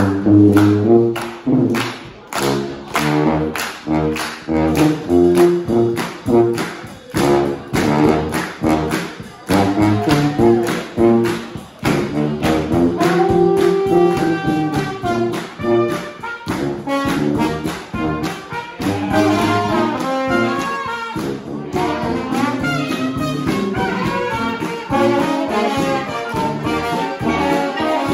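Live brass band playing an upbeat tune: trombones and trumpets over a steady drum beat.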